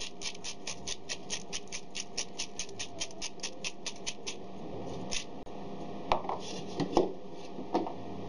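Salt being dispensed with a rapid, even clicking of about five strokes a second for about four seconds. A few scattered knocks and clatters of kitchen handling follow.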